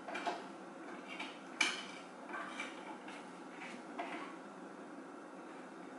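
Dishes and utensils clinking and knocking in a kitchen sink as they are handled, in a few separate knocks, the sharpest about a second and a half in, growing sparser near the end.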